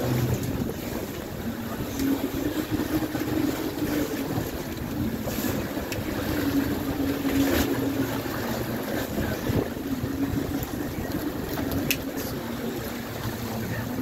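A salmon troller's engine running with a steady low hum, with water churning and splashing against the hull and wind on the microphone.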